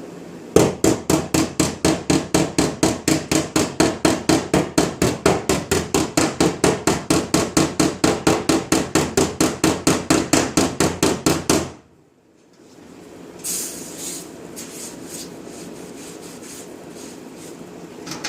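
Body hammer tapping rapidly on the sheet-steel quarter panel of a Chevy Express van, about five even blows a second, tapping down a heated high spot to shrink stretched metal. The hammering stops suddenly about two-thirds of the way through, followed by a quieter hiss with a few faint clicks.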